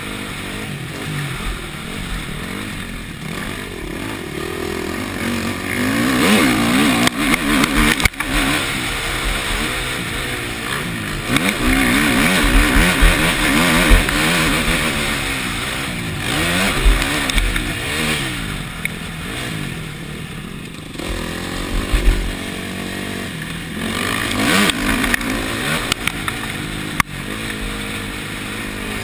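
A KTM four-stroke motocross bike's engine heard from the rider's helmet camera, revving up and down hard as the bike rides the track. Its pitch rises and falls, with several louder pulls along the way.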